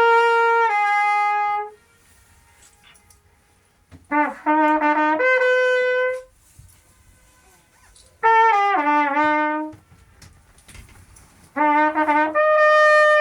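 A brass horn plays the Königssee echo demonstration: four short melodic phrases, each a second and a half to two seconds long. They are separated by pauses of about two seconds, left for the echo to come back off the cliffs, and it returns only faintly.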